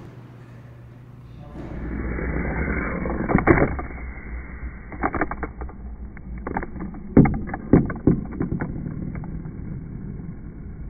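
Box Boarders toy skateboard with its cardboard figure rolling down a cardboard ramp with a rumble, then hitting the tabletop with a loud knock about three and a half seconds in and clattering in a string of sharp knocks as it tumbles and comes to rest.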